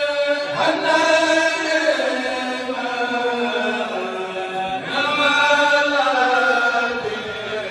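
Men chanting religious verses into microphones without instruments, in long drawn-out phrases that slide downward in pitch. A new phrase begins about half a second in and again about five seconds in.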